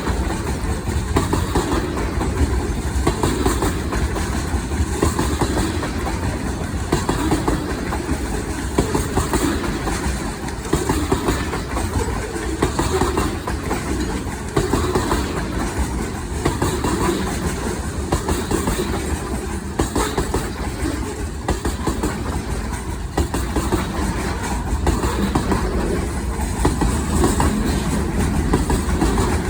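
Norfolk Southern train running on the rails, a steady, even sound that carries on without let-up.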